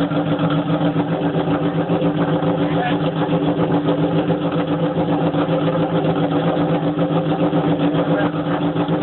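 Yamaha Banshee quad fitted with a Suzuki GSX-R inline-four motorcycle engine, idling steadily at an even pitch with no revving.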